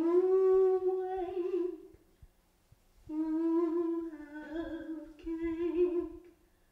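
A single unaccompanied voice singing a slow wordless melody in two long held phrases. The second phrase begins about three seconds in, after a short pause.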